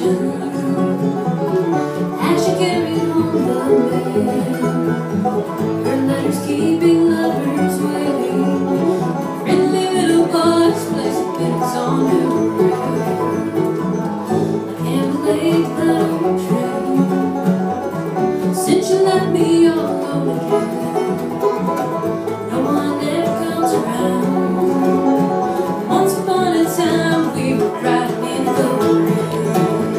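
A live bluegrass string band playing, with banjo, mandolin, acoustic guitar, fiddle and upright bass.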